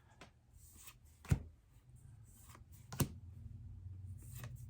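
Pokémon trading cards being handled, with two sharp taps about a second and three seconds in as cards are set down. A low steady hum rises under it after the second tap.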